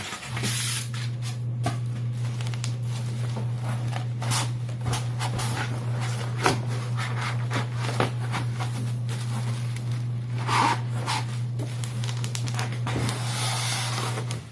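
Cardboard and plastic packaging being handled during an unboxing: scattered rustles, scrapes and small knocks over a steady low hum.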